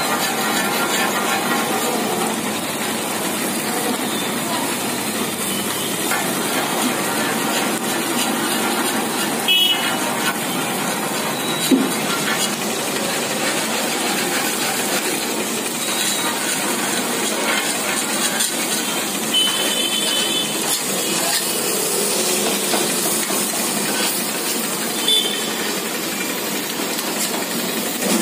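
Kothu parotta sizzling on a flat griddle as a metal spatula stirs and scrapes it, with a few sharp clinks of the spatula on the griddle.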